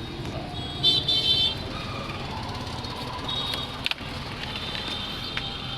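Busy street traffic: a steady hum of passing vehicles, with a shrill horn sounding once about a second in and fainter short high horn toots later.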